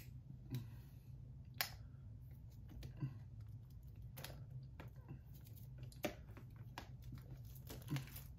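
Scattered light clicks, taps and scrapes of a small blade and fingers working at the plastic shrink-wrap on a SteelBook disc case, a sharp tick every second or two, over a steady low hum.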